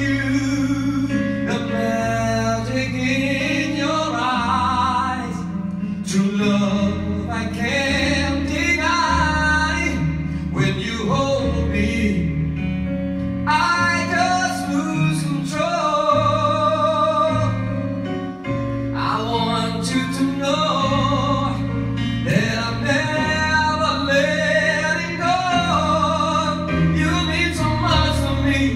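Love ballad: a man singing with vibrato into a microphone over a backing track, with long held bass notes underneath.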